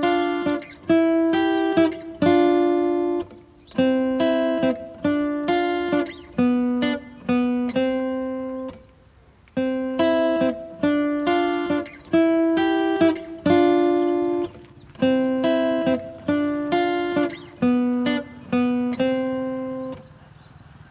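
Background music: a plucked-string melody of single notes, each starting sharply and fading, in a phrase that repeats, with a short break about nine seconds in.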